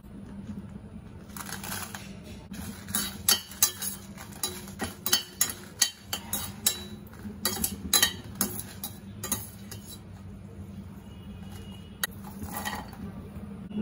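Steel slotted spoon clinking and scraping against a stainless steel pan as dried red chillies are stirred in oil, in quick irregular strikes that stop about ten seconds in, with a couple more clinks near the end.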